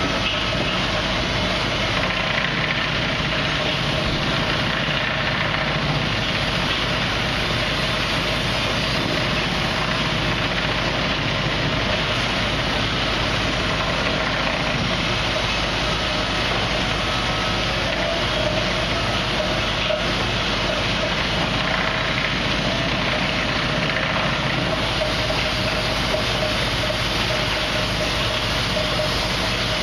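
Sawmill machinery running: a steady engine drone with a constant hum and no break or change.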